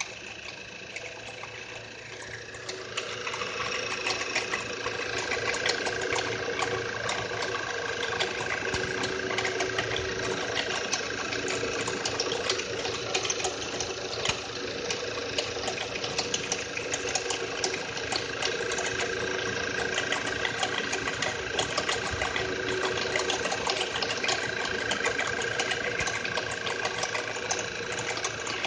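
Skoda Superb's 1.8 TSI CDAB turbocharged four-cylinder idling cold, with a fast, steady ticking clatter from the right side of the engine bay. This is the extraneous knock that shows up at idle after long parking in freezing weather. The sound gets louder about three seconds in.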